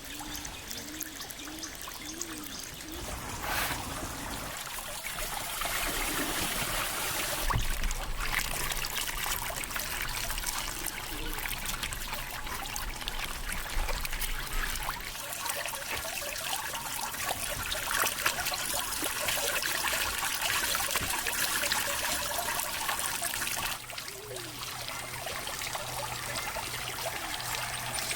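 Water running and trickling with a steady splashing; it drops abruptly to a softer level near the end.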